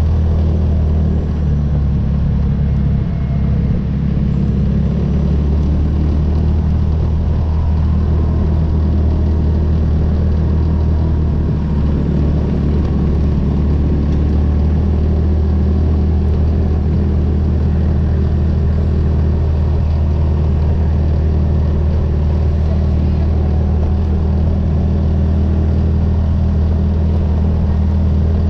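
ATV engine and drivetrain running steadily while driving along a gravel trail: a loud, even low drone with rumbling noise over it, holding the same speed throughout.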